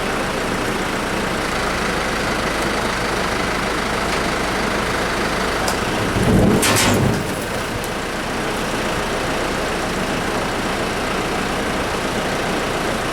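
An engine running steadily, with a louder burst of about a second roughly six and a half seconds in.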